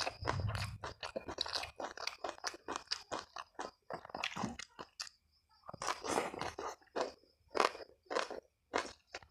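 Close-miked chewing and crunching of food in the mouth: a quick run of short crunchy chews, several a second, with a brief pause about five seconds in.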